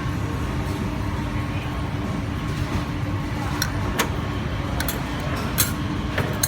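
Steady low rumble of street background noise with a constant low hum, and a handful of sharp clicks in the second half.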